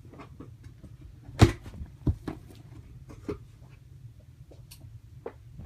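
Cardboard package and its contents being handled while it is opened: a few short, sharp knocks and scrapes, the loudest about a second and a half in.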